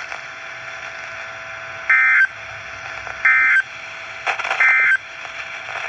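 Three short bursts of warbling two-tone data, about 1.3 s apart, from a NOAA Weather Radio receiver's speaker over steady radio hiss: the SAME end-of-message code that closes an EAS warning broadcast.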